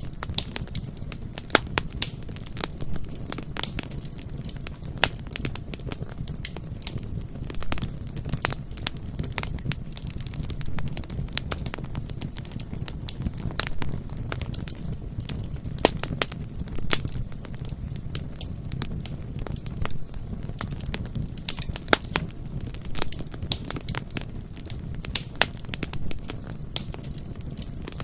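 Wood bonfire burning, with a steady low rumble of flames and frequent sharp, irregular crackles and pops from the burning wood.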